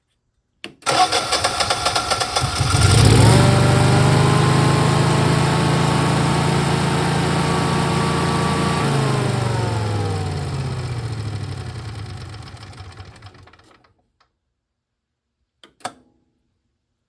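Engine cranking with a pulsing starter for about two seconds, then catching and running steadily. About six seconds later it slows, falling in pitch and fading over several seconds until it dies out.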